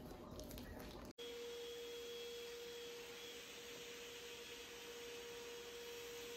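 Faint steady single-pitched hum over a low hiss, starting abruptly about a second in; before it, only faint room noise.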